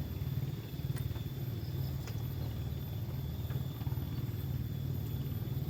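An engine running steadily, a low pulsing drone that does not change, with a few faint light ticks over it.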